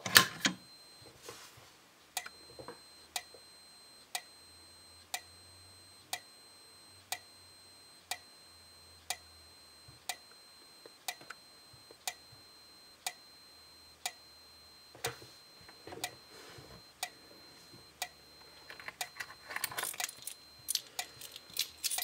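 Simplex 4904-9301 30 cd sync remote strobe ticking each time it fires, about once a second, with a faint high whine between ticks. The alarm has just been set off by pulling a Simplex dual-action pull station, whose handle clicks at the very start.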